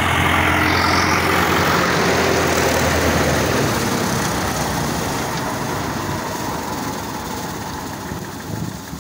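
Farm tractor's engine running under load while it drives a pull-type mower-conditioner through its PTO shaft, cutting grass. The steady engine hum loses its deep tone a few seconds in and then fades gradually as the rig moves away.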